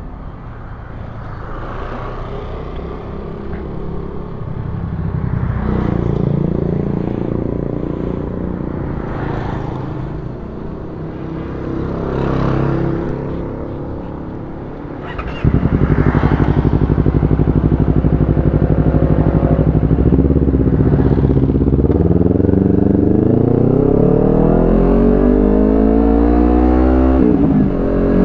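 Honda CBR250RR parallel-twin engine breathing through an aftermarket Villan Z2 carbon exhaust, ridden on the road. About halfway through it suddenly gets much louder, then the revs climb steadily for several seconds, drop sharply with a gear change near the end, and climb again.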